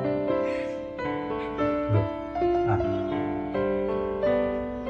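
Background music: a slow piano melody of held notes.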